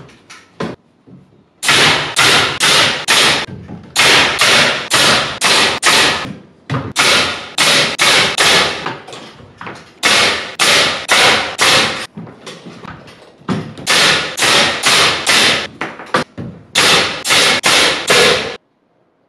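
Pneumatic nail gun driving nails through plywood corbel pieces into wooden framing, fired in quick runs of sharp shots, several a second, with short pauses between runs. The shots stop suddenly shortly before the end.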